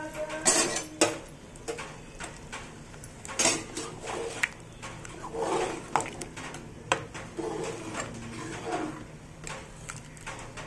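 Metal ladle stirring thick dal and mutton curry in a metal pot, scraping and knocking against the sides at irregular intervals over a steady low hum.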